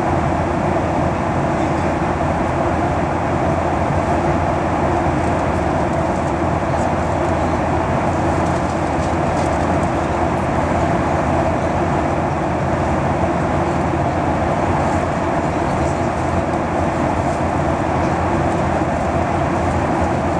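Steady cabin noise inside a Boeing 737-800 in flight: the drone of its CFM56-7B turbofan engines and the rush of air over the fuselage, heard from a window seat.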